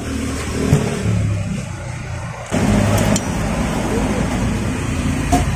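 A motor vehicle engine running, getting louder about two and a half seconds in, with a couple of light clicks.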